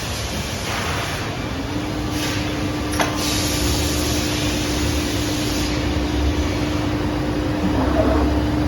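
CNC mitering cold saw running: a steady mechanical noise, with a steady hum coming in about a second and a half in and one sharp click about three seconds in.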